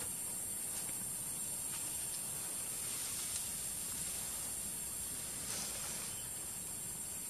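A steady high-pitched hiss, with a few faint rustles of leaves and branches, loudest about five and a half seconds in.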